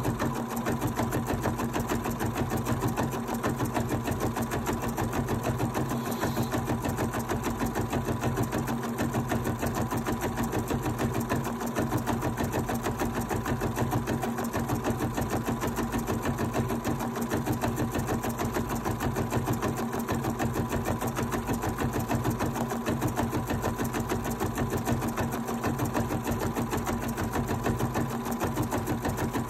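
Bernina 790 sewing and embroidery machine stitching out an embroidery design: a steady, rapid run of needle strokes over the motor's even hum.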